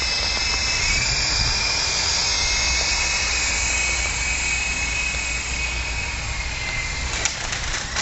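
Small electric RC helicopter's motor and rotors whining steadily, the pitch sagging slightly, then dying away about seven seconds in amid a few sharp clicks and snaps as it comes down into the tree branches. A steady low wind rumble sits on the microphone throughout.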